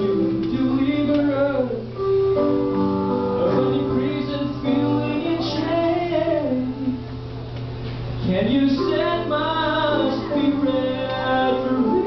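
A vocal quartet singing a song, the voices bending and gliding over steady, sustained instrumental accompaniment.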